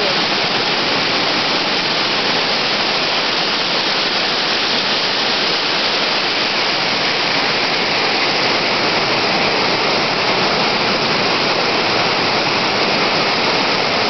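Waterfall pouring over rock at close range: a loud, steady rush of white water.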